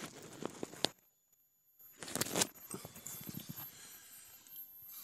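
Rustling and handling noise with scattered clicks as the camera is moved about against tent fabric and bedding. It drops out briefly about a second in, then returns and fades to a soft hiss.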